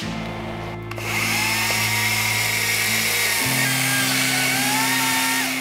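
A Makita cordless power tool's electric motor starts about a second in and runs at speed with a steady whine and hiss, its pitch wavering a little, then stops at the end. Background music plays underneath.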